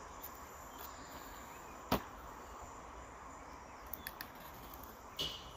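Cardboard product box being opened by hand: one sharp click about two seconds in and another near the end, with a few faint ticks between, over a steady hiss.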